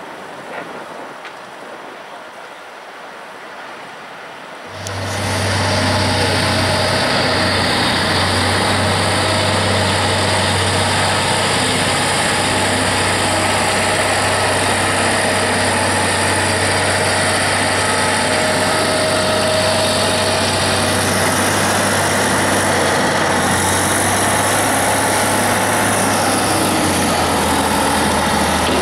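Faint construction-site noise, then about five seconds in a much louder diesel engine takes over: a Caterpillar wheel loader's engine running steadily with a deep, low drone.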